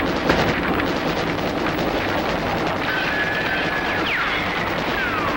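Action-film sound effects: gunshots crackling over a steady engine din, with a couple of falling whines near the end.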